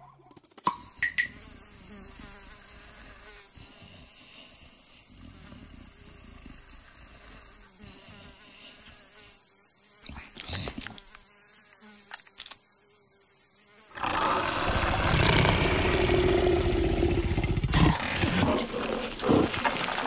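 Cartoon sound effects: a thin, steady insect whine, then, about two-thirds of the way in, a much louder low, rough big-cat growl, with a few sharp thumps near the end.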